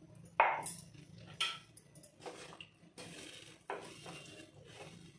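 A spatula stirring thin, watery gravy in a non-stick kadai, knocking against the pan several times with short scrapes in between.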